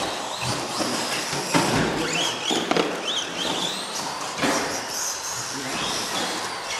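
Electric motor of an Associated SC10 4x4 radio-controlled short-course truck whining, rising and falling in pitch with the throttle as it runs the track, over background chatter.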